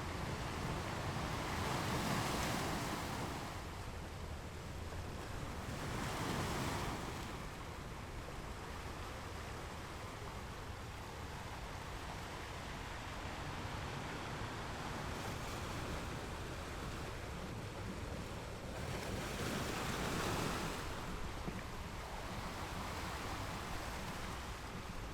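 Ocean waves breaking against rocks: a steady wash of surf, with louder crashes about two seconds in, around six seconds in, and near twenty seconds in.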